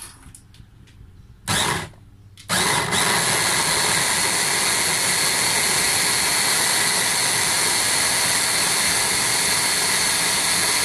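Hand blender's motor unit on a chopper bowl, pulsed briefly about one and a half seconds in, then running steadily, blending frozen strawberries with coconut milk.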